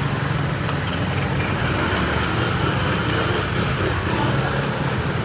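Steady road traffic: vehicle engines running close by, a continuous low rumble under a general street hum.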